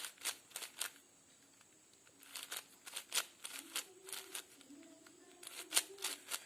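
Plastic layers of a 5x5 Rubik's-style cube being turned quickly, a run of sharp clicks and clacks in several short bursts.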